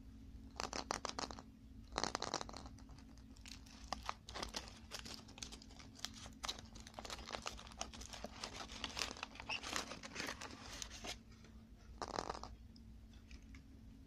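Thin foil wrapper being peeled and crumpled off a chocolate ball: a run of crinkling, crackling rustles that starts a moment in and goes on for about ten seconds, then a brief pause and one last burst of crinkling near the end.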